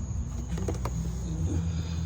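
A steady low mechanical hum, with a few light clicks and taps about half a second to one second in.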